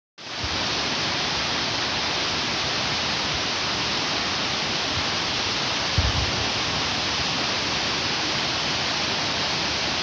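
Waterfall rushing steadily, with a brief low bump about six seconds in.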